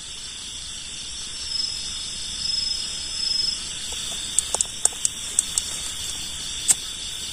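Night-time chorus of crickets: a steady, high, pulsing trill. About halfway through there are several sharp clicks in quick succession, and one more near the end.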